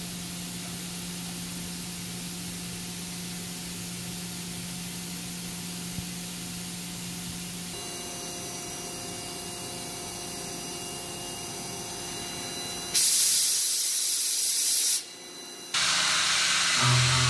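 Hwacheon SMART Ua vertical machining center running through its probing and tool-measuring cycle, a steady hum and hiss with faint steady tones. About 13 seconds in, a loud hiss sets in for about two seconds. After a short dip, a loud spraying hiss starts as roughing with oil-mist cutting fluid begins, and a low steady tone joins near the end.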